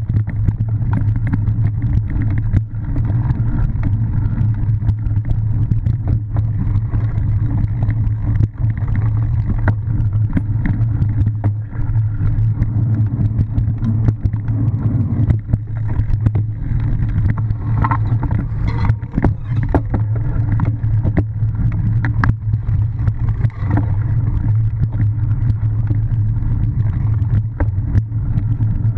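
Cyclo-cross bike ridden fast over grass, dirt and gravel, heard through a handlebar-mounted action camera: a loud, steady low rumble of rolling tyres and wind on the camera. Frequent knocks and rattles come as the bike hits bumps.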